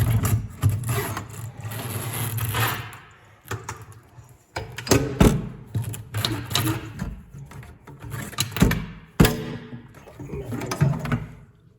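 An old faucet being worked loose and pulled up out of the sink: scraping and rubbing for the first few seconds, then a string of irregular knocks and clatter, the loudest about five seconds in and again near nine seconds.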